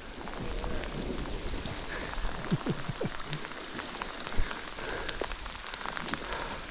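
Rain falling steadily, an even hiss with scattered sharper ticks of individual drops.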